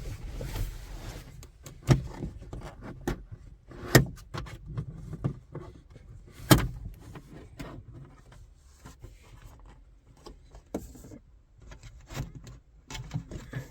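Plastic interior trim panel being pried loose with a plastic trim tool: a run of clicks, creaks and scrapes, with two loud sharp snaps about four and six and a half seconds in.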